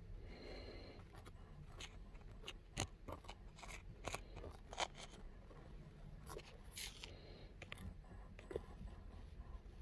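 Faint, irregular sharp clicks and scratchy scrapes close to the microphone, about a dozen of them, loudest about three and five seconds in: handling noise of small hard objects or fingers rubbing against the phone or skin.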